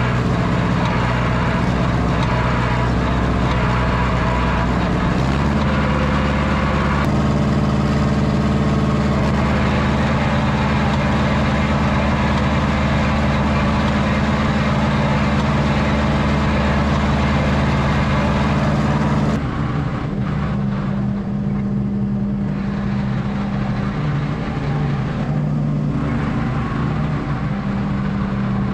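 John Deere 1010 crawler's four-cylinder diesel engine running, heard close up from the operator's seat, its speed stepping up about five seconds in. About two-thirds of the way through it becomes quieter and sounds farther off.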